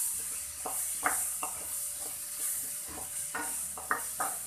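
Chopped onions and tomatoes sizzling in hot oil in a kadai while being stirred with a wooden spatula, which scrapes and knocks against the pan several times over a steady sizzle.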